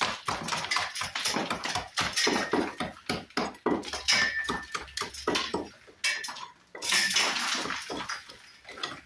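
Small steel brick hammer with a pick end chipping at a soft brick face: rapid, irregular strikes with bits of brick scraping and falling, as a high spot in the recessed brick is trimmed back to an even depth for a brick slip. The strikes pause briefly about six seconds in.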